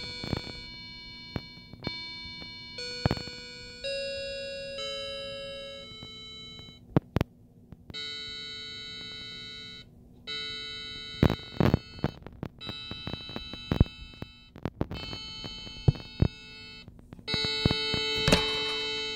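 Coaster quartz grandfather clock's electronic chime module playing its 8-bit chime melody: synthesized bell-like notes one after another, about one a second at first, then longer ringing notes. Several sharp knocks cut in along the way.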